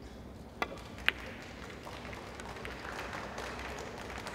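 Two sharp clicks about half a second apart, the second louder: a cue striking the cue ball in three-cushion carom billiards, then the cue ball hitting another ball. Low hall noise follows and rises slightly over the next seconds.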